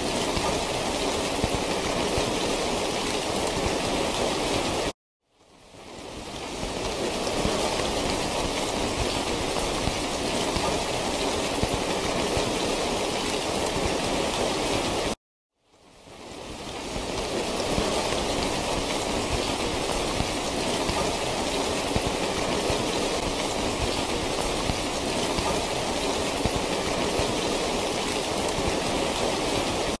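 Steady rain falling, an even, dense wash of noise. It cuts out suddenly twice, about five and fifteen seconds in, and fades back in over a second or two each time.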